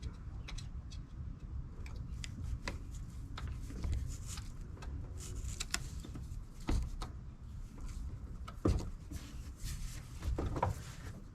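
Scattered light clicks and scrapes of a hand tool tightening a hose clamp on the coolant hose at the thermostat housing, over a low background rumble.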